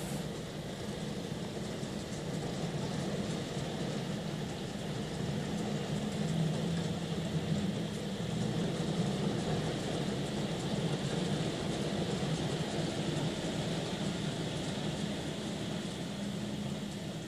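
A heavy fall of large hailstones striking roofs, ground and a tarpaulin, a steady, dense clatter with no break.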